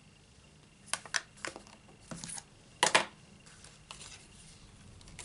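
A few light clicks and taps with paper rustling as craft supplies are moved on a tabletop and a stamped cardstock piece is picked up; the loudest tap comes a little before three seconds in.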